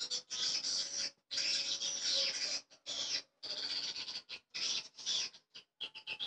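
Edited swiftlet lure recording: edible-nest swiftlets' buzzy chattering calls, played to draw swiftlets into a bird house. The calls come in bursts about a second long with short gaps, turning into quicker short chirps near the end.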